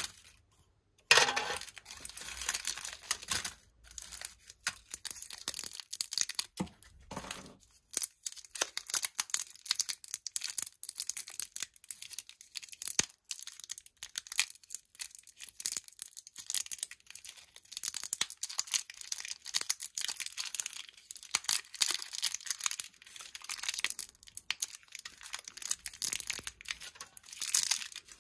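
Plastic candy wrappers crinkling and tearing as small wrapped sweets are unwrapped by hand: many quick, irregular crackles.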